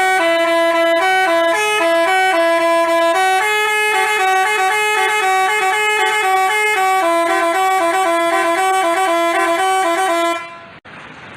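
Telolet multi-tone bus horn of the Basuri type playing a quick melody of short stepping notes, stopping abruptly about ten seconds in.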